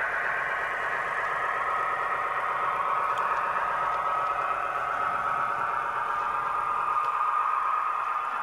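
Roco HO-scale X 2800 diesel railcar model playing its digital sound decoder's diesel engine sound through its small onboard speaker, a steady engine drone as the model runs along the track.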